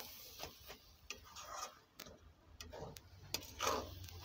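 Metal spatula scraping and tapping against a metal kadai as cooked cabbage is stirred, in uneven strokes.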